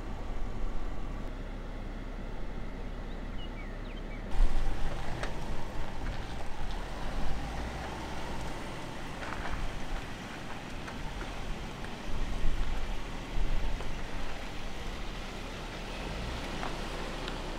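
Wind rumbling on the microphone, then from about four seconds in a Range Rover crawling slowly over a rocky trail, its tyres crunching and crackling over rock and gravel, with scattered small clicks.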